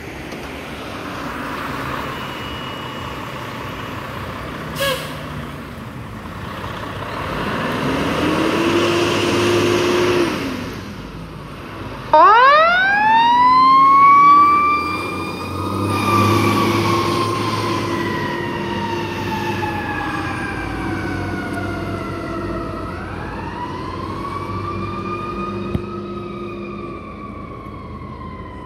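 Fire engine pulling out, its engine revving, then its mechanical siren winding up sharply about twelve seconds in, slowly winding down, and winding up again near the end.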